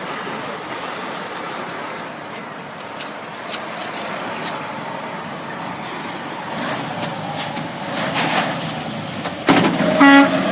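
Road traffic rumbling by, with a short blast of a truck horn near the end.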